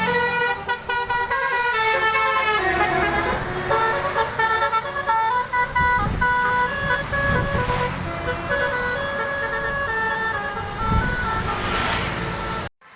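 Bus telolet horn, a Basuri multi-tone air horn, playing a jaunty stepping melody of several tones sounding together, over traffic and engine rumble. It stops abruptly just before the end.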